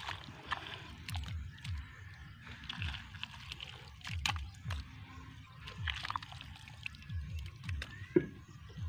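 A hand trowel stirs and scoops mud in a water-filled planting hole, with wet sloshing and squelching, short scrapes and clicks, and one sharp knock near the end. A low pulsing rumble sits underneath.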